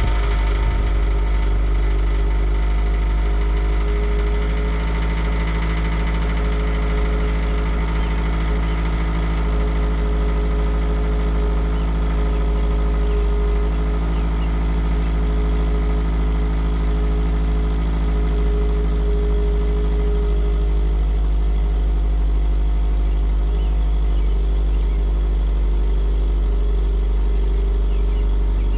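2009 Subaru Outback's boxer engine idling steadily through a new stainless steel cat-back exhaust, heard from behind the car at the tailpipes. It is a cold start, shortly after the ECM was reset, while the engine settles in to the new exhaust's back pressure and flow.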